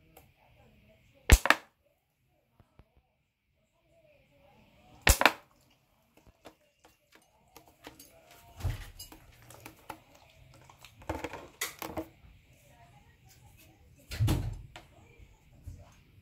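An empty plastic water bottle knocked about and crackling as a dog plays with it: two loud sharp knocks early, then a run of scattered clicks, crinkles and dull thumps.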